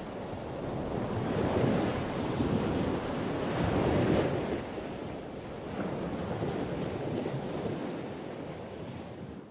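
Rushing, churning water noise of an aquarium's filter and aeration, swelling and ebbing, fading out near the end.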